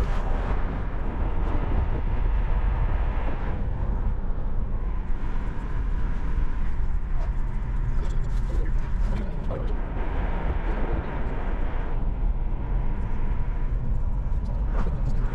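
Steady rumble of a car on the move: engine and road noise, mostly low and even.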